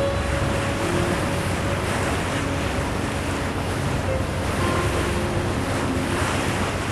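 Wind buffeting the microphone over the steady rush of sea water past a moving boat.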